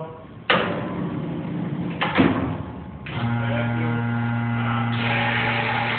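Thermoforming machine cycling its platens, with a sudden hissing thump about half a second in and another about two seconds in. About three seconds in, a steady motor hum starts, and a broader hiss of air joins it about five seconds in.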